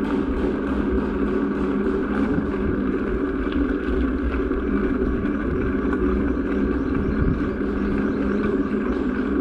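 Vehicle engine running steadily at low road speed, heard from a camera on the moving vehicle, with a constant low rumble of road noise.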